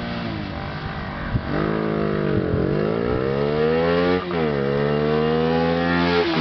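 Bajaj Pulsar 220 DTSi motorcycle engine with a K&N aftermarket air filter, accelerating through the gears. Its note climbs in pitch and drops back at each gear change, three times: about two and a half seconds in, about four seconds in and at the very end.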